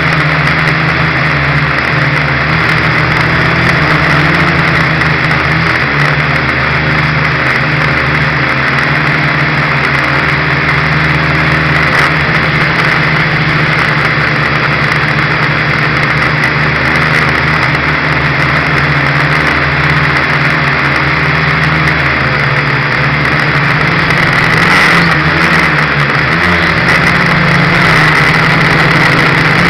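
Dromida Ominus FPV quadcopter's motors and propellers buzzing loudly and steadily, heard close up through its own onboard camera microphone. The pitch shifts a little near the end.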